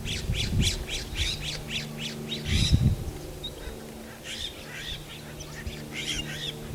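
A bird gives a fast series of harsh, scratchy calls, about four a second, then two shorter bursts of harsh calls later on. A low thump comes about two and a half seconds in.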